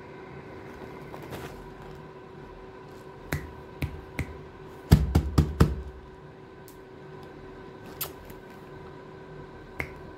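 A cat getting down from a chair and moving onto a glass-topped wicker table: a few light knocks, then a cluster of heavier thumps about five seconds in, and a couple of single clicks later, over a faint steady hum.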